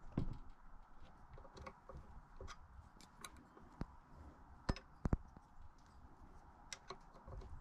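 Irregular light clicks and taps of hand tools and bike linkage parts being handled, with a dull thump right at the start and two sharp clicks close together about five seconds in.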